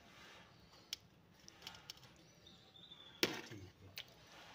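Metal ladle knocking and scraping against a cooking pot while scooping gravy: a light click about a second in and a sharper knock near the end.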